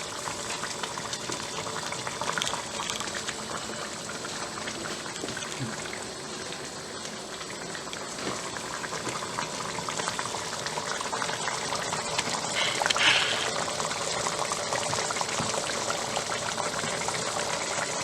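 Kinamatisang baboy (pork and tomato stew) bubbling in the pot at a steady simmer, a continuous crackle of small bubbles; the stew is cooked.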